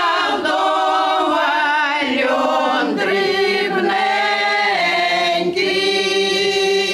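Women's folk choir singing a Ukrainian village folk song in long held, wavering notes, with short breaks between phrases.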